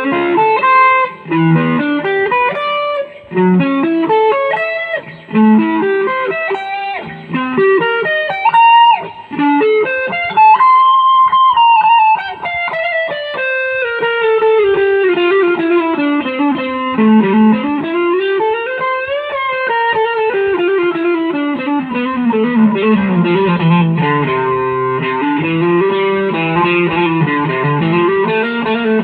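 Instrumental guitar music: a melody of picked notes, with long sliding glides in pitch in the middle of the passage.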